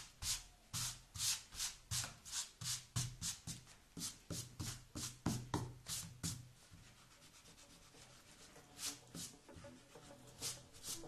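Hand rubbing and sweeping across a sheet of drawing paper in quick back-and-forth strokes, about three a second, clearing it after erasing. The strokes thin out to a few scattered ones about six seconds in.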